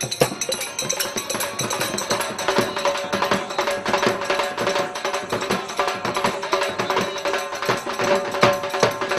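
Rajasthani folk music with fast, dense percussion of jingles and wooden clicks over steady held tones.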